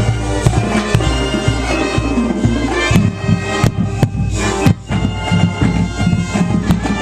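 Marching band playing: wind instruments in sustained chords over low drum beats, with a short break a little before the five-second mark.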